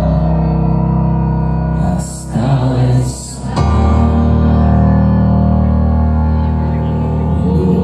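A live rock band playing a slow song, heard from the audience, with long held keyboard and bass chords.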